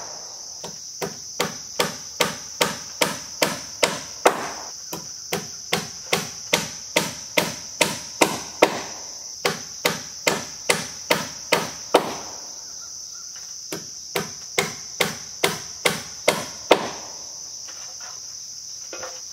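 A hammer striking again and again, about two blows a second, driving nails through metal hurricane straps into a wooden rafter; the hammering pauses about two-thirds of the way through and stops near the end. A steady high chirring of insects runs underneath.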